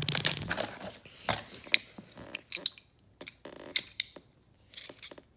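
Beyblade spinning tops and parts being handled: a rapid ratcheting rattle fades out in the first half-second, then scattered sharp clicks and clacks of small plastic and metal pieces.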